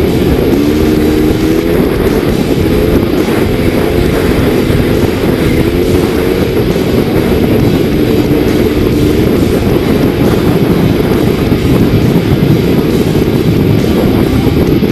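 Dirt bike engine running hard under load in sand, its pitch rising and falling as the throttle is worked, with wind rumbling on the microphone.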